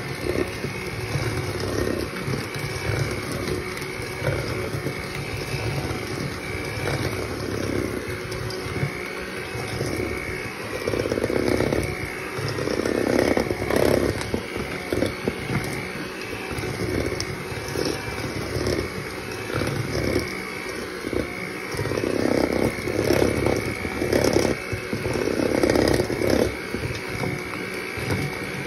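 Electric hand mixer running steadily, its beaters churning crumbly peanut butter cookie dough in a stainless steel bowl, with two louder stretches of rattling as the beaters work through the dough. The dough is still dry and not yet coming together.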